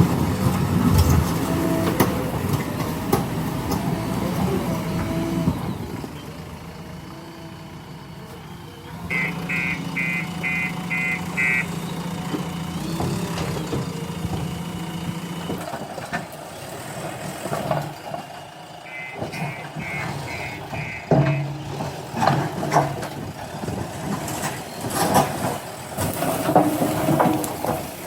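JCB 3DX backhoe loader's diesel engine working, easing off for a few seconds and then picking up again. Its reversing alarm sounds twice, each time as a run of about six quick high beeps, once about a third of the way in and again about two-thirds in.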